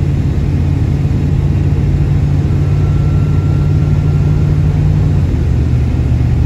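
Steady low engine and road drone inside the cab of a two-door Chevrolet Tahoe cruising on a highway; the engine note steps slightly lower about five seconds in.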